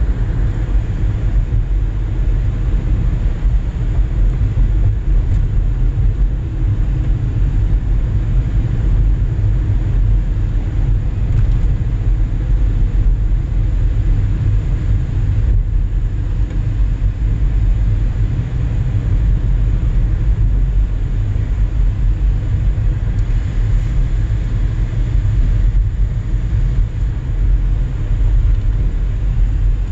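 Car driving at steady speed, heard from inside the cabin: an even low rumble of road and engine noise.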